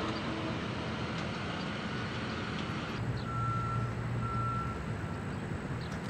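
Vehicle backup alarm beeping twice about three seconds in, each beep about half a second long, with a fainter third beep after, while a low engine hum swells beneath them. Steady outdoor machinery and traffic noise underneath throughout.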